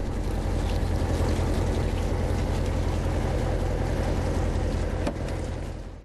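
A fishing boat's engine runs steadily: a low, even hum under a wash of noise. It fades out near the end.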